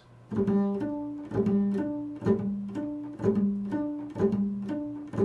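Double bass played pizzicato: plucked notes at about two a second in a repeating low figure, beginning shortly after the start.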